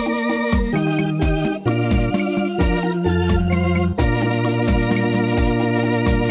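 Background music: an electronic keyboard playing an organ sound over a bass line and a steady beat.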